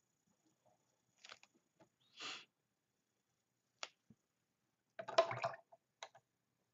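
A few faint, scattered clicks and scrapes of a paintbrush working against a plastic paint palette. There is a short hiss about two seconds in, and the loudest cluster of taps comes about five seconds in.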